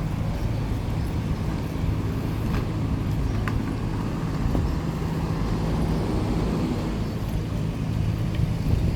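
Street traffic: a steady low rumble and hum of vehicle engines, with a couple of faint clicks.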